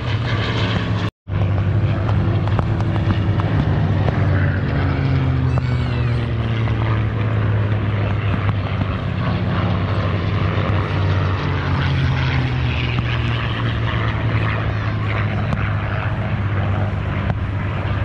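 Propeller-driven airplane flying past with a steady engine drone, its pitch sliding slowly lower as it goes by. The sound cuts out for a split second about a second in.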